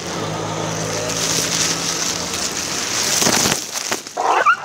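Motor vehicle engine running close by: a steady low hum with hiss that fades after about three and a half seconds. Near the end comes a brief high, wavering sound.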